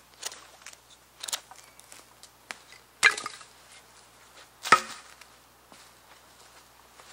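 A knife shaving a wooden stick in a few light, short strokes, then two much louder sharp wooden knocks about a second and a half apart.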